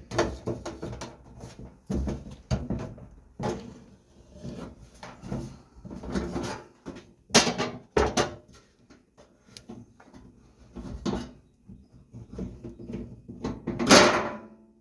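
Irregular knocks, clanks and scrapes of sheet-metal RV furnace parts and tools being handled during disassembly, with a louder clatter near the end.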